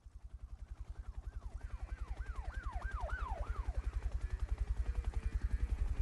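Siren wailing in quick, repeated falling sweeps over a fast, low throbbing pulse that fades in at the start. The sweeps die away about halfway through while the throbbing grows louder.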